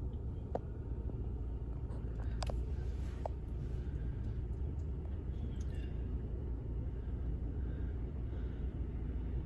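Steady low rumble of a running vehicle heard from inside the cab, with a few light clicks.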